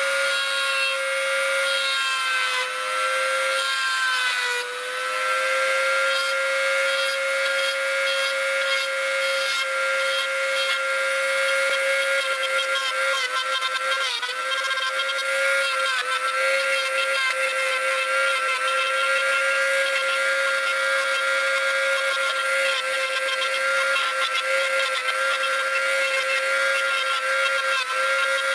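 Handheld electric rotary tool with a small burr grinding the aluminium weld at the edge of a cylinder bore on an alloy engine block. Its high, steady whine dips in pitch as the burr bites harder, around three to four seconds in and again about halfway through.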